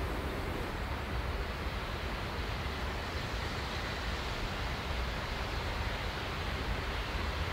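Wind buffeting the microphone: a steady low rumble under an even outdoor hiss.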